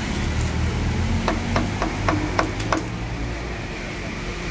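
A meat cleaver chopping poached chicken on a thick round wooden chopping board: about six quick knocks, roughly three a second, over a low background rumble.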